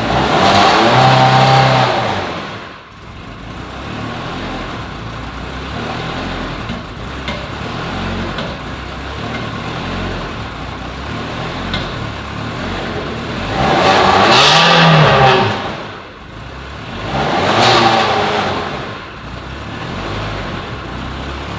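Car engine idling and blipped three times: near the start, and twice more close together near the end, each rev rising and falling.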